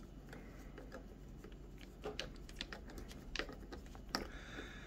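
Small screwdriver turning tiny screws into an aluminium RC wheel rim: faint, scattered metal clicks and ticks, more of them in the second half.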